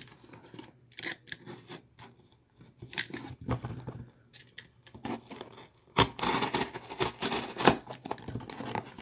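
A utility knife cutting through packing tape and cardboard on a shipping box: scratching, scraping and tearing with scattered clicks. It grows louder and denser about six seconds in.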